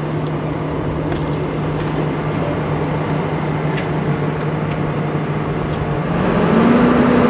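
Volvo crawler excavator's diesel engine idling steadily, with a few light knocks and rattles as someone climbs into the cab. About six seconds in, the engine speeds up and gets louder.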